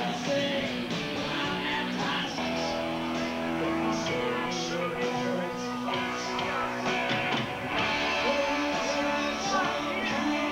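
Live rock band playing: electric guitars, bass and drums with repeated cymbal hits, a dense, steady wall of sound.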